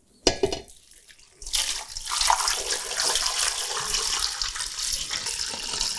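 Cold water being poured from a container into a large stock pot, a steady stream that starts about one and a half seconds in and keeps going.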